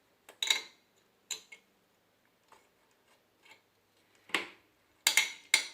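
A CPU cooler's spring-loaded mounting screws being tightened down: scattered short metallic clicks and scrapes, a few near the start and a louder cluster near the end.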